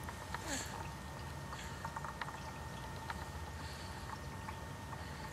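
Quiet room tone with a steady low hum, over which come faint, scattered little wet clicks from a baby's mouth as he lies on his tummy.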